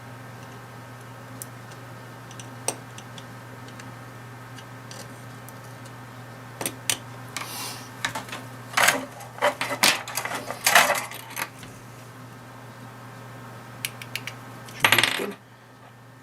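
Small metal and plastic clinks and rattles of tools and key fob parts being handled on a workbench during a key fob switch repair: a few scattered light clicks at first, then busy clusters of clinks in the middle and one louder clatter near the end, over a steady low hum.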